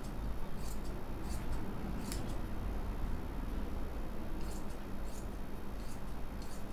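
Fabric scissors cutting through cloth: a series of short, crisp snips at uneven intervals, over a steady low hum.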